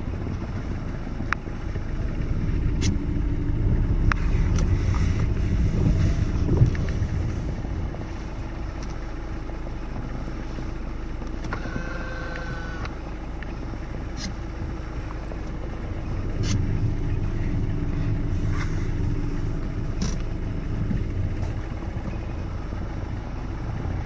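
A steady low engine rumble that swells twice, with faint scattered clicks and a short pitched note about halfway through.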